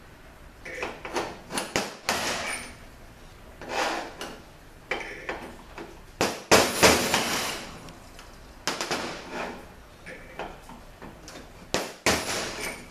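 Hammer blows on a steel bushing driver, knocking an old bushing out of a 62TE automatic transmission part: a dozen or so sharp metal strikes at an uneven pace, some ringing briefly. The heaviest blows land about halfway through.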